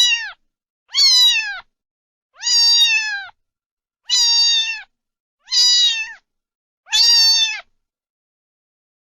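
Domestic cat meowing over and over: about six similar meows, each under a second long, roughly one every second and a half, each dropping in pitch at the end.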